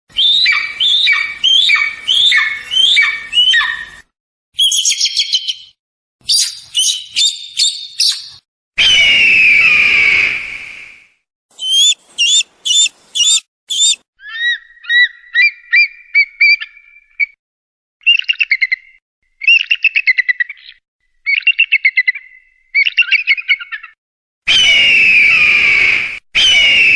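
Eagle calls in a run of separate clips with abrupt silent gaps between them: series of quick falling chirps, fast chattering trills, and twice a long harsh scream.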